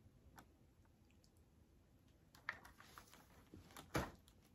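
Near silence, with a few faint taps and clicks of small items being handled; the sharpest one comes near the end.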